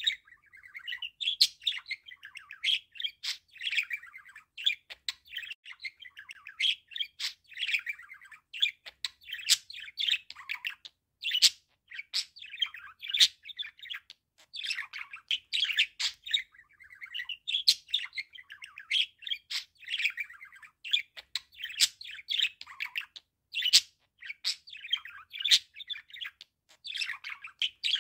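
Male budgerigar warbling: a long, rambling run of quick chirps, chatter and sharp clicks, broken only by short pauses.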